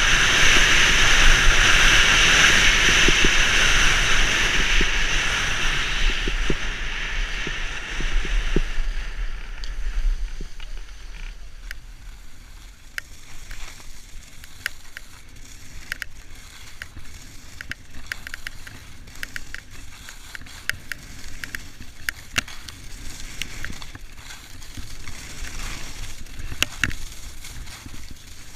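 Skis hissing and scraping over packed snow at speed, with wind rumbling on a helmet-mounted camera's microphone, for about the first ten seconds. Then it drops much quieter, with scattered clicks and knocks of skis and poles moving slowly, and the snow hiss builds again near the end.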